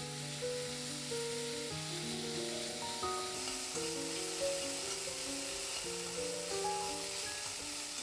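Soy-marinated beef strips and shiitake mushrooms sizzling steadily in an oiled pan as they are stirred with wooden chopsticks, being fried until their moisture is gone. Soft background music with held notes plays underneath.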